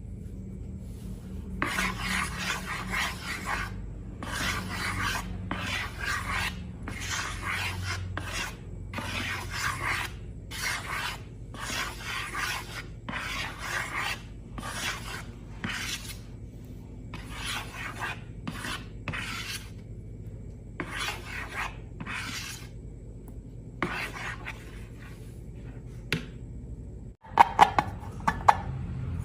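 About twenty rasping scrape strokes, roughly one a second, each lasting under a second; they stop and a few sharp clicks follow near the end.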